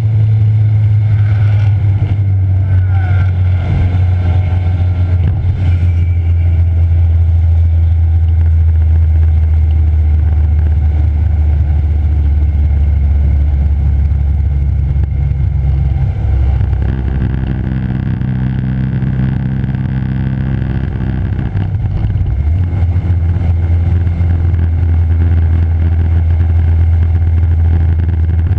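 A car's engine running hard at track speed, picked up by a low-mounted onboard camera along with wind and tyre noise. The engine note shifts twice in the second half, once about halfway through and again about three-quarters in.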